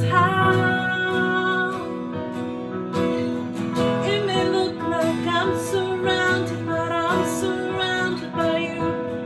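Worship music led by acoustic guitar, playing continuously.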